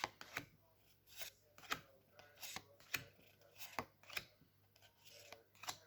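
Pokémon trading cards being handled and flipped one by one: about a dozen short snaps and swishes of card stock, roughly two a second.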